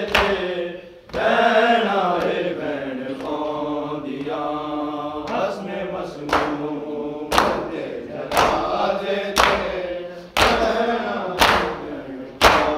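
Voices chanting a noha, a Shia lament, in a drawn-out melody. Sharp slaps come about once a second in time with the chant, the loudest sounds here, typical of chest-beating (matam).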